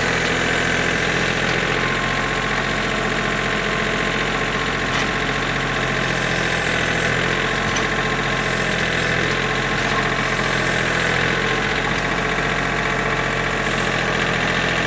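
Compact tractor's engine running steadily while its front-loader pallet forks carry a log onto the sawmill bed.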